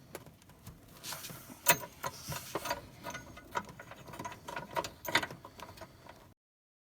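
Hands working on a Mercedes Sprinter's exhaust pressure sensor and its two small hoses in the engine bay: an irregular run of small clicks and knocks, the sharpest about two seconds in. The sound cuts off suddenly shortly before the end.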